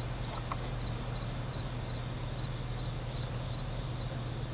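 Steady high insect drone from the woods, with a faint, fast repeating chirp beneath it, over a low steady hum.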